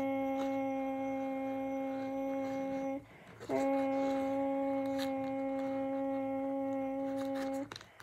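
Homemade paper tornado siren sounding a steady low tone at one unchanging pitch with overtones, breaking off briefly about three seconds in and again near the end.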